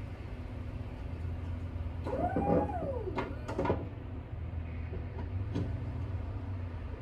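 Low, steady rumble of a snowplow pickup truck driving off. About two seconds in there is a short squeal that rises and falls in pitch, followed by three sharp clicks in quick succession and one more a couple of seconds later.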